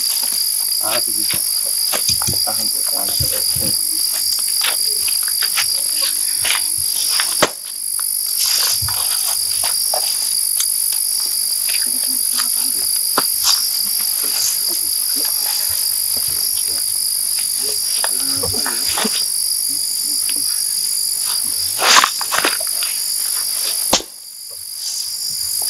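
Crickets and other night insects chirring steadily in two high-pitched bands, with scattered clicks and rustles over them. The insect sound dips briefly twice, about seven seconds in and near the end.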